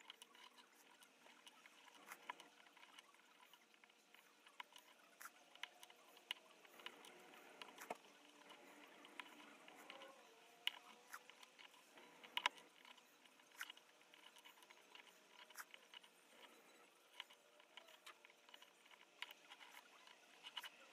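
Faint, scattered clicks and ticks of tweezers prising small metal contacts out of a broken short-circuiting spring and dropping them onto a wooden bench. The clearest tick comes a little past halfway.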